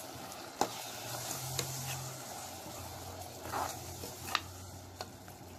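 Tomato paste and shallots sizzling in a pressure cooker while a steel ladle stirs them, with several sharp clicks as the ladle knocks against the pot.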